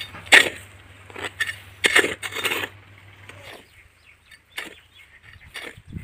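Long-handled hoe striking and scraping into dry, loose tilled soil while a drainage channel is drawn between beds: a run of irregular chopping strokes, the loudest about half a second and two seconds in, fainter after that.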